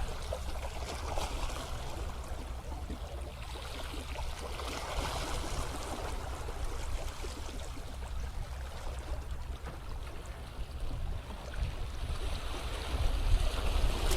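Sea water washing and sloshing against shoreline rocks, swelling and easing every few seconds over a steady low rumble.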